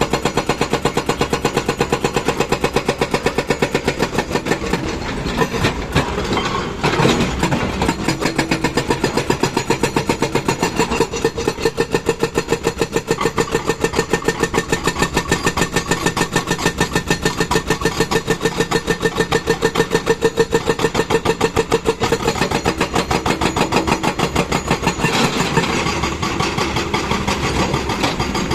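Diesel engine of a JCB backhoe loader running under work, a steady fast pulsing throb. There is a louder, rougher stretch about seven seconds in, and the tone shifts again near the end.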